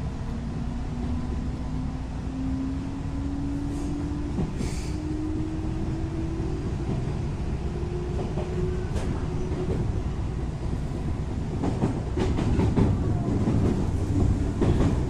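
JR West 221 series electric train running, its traction motors under field-added excitation control giving a steady tone that rises slowly in pitch as the train gathers speed, then fades about nine seconds in. From about twelve seconds in the running noise grows louder, with the wheels clattering over rail joints.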